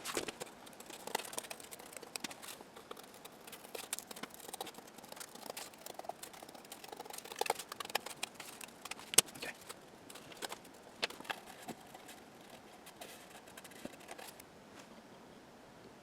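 A piece of cardboard being cut and handled by hand: irregular scratchy cuts and small clicks, with one sharp snap about nine seconds in.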